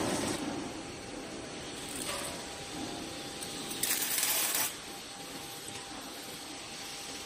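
Factory workshop background noise with a faint steady hum, and a short burst of hissing about four seconds in.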